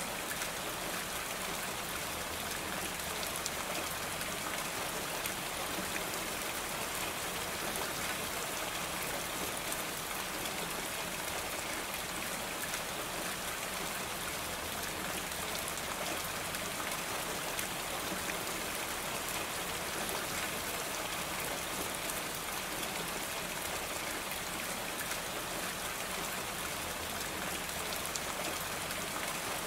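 Steady rain falling on a roof: a dense, even patter of many drops that holds unchanged throughout.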